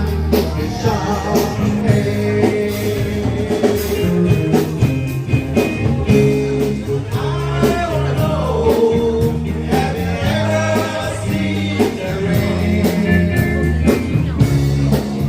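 Rock band playing a song with a lead singer, guitar and a steady drum beat.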